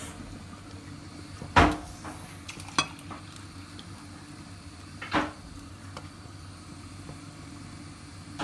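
A spoon knocking against the side of an aluminium cooking pot while a curry is stirred: a loud clank about a second and a half in, a sharp tick a second later with a few light clicks around it, another clank just after five seconds and one more at the very end.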